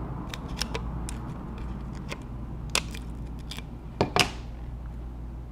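Scattered small clicks and taps of tools against the iPod touch's small internal bracket and casing as the bracket is fitted back into place, with the two loudest about four seconds in. A steady low hum runs underneath.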